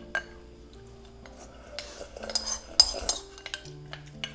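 Chopsticks clinking and scraping against the rim of a ceramic soup bowl while the bowl is tipped up to the mouth, a few sharp taps, most of them bunched in the middle.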